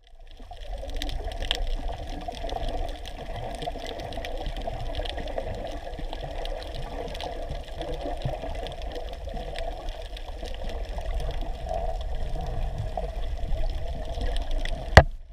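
Muffled underwater sound heard through a submerged camera housing: a steady wash of moving water with a low rumble and scattered faint clicks. A single sharp knock near the end.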